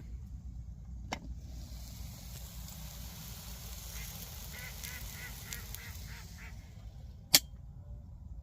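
Waterfowl on the lake calling: a quick run of about eight short honking calls. A single sharp click sounds about a second after them.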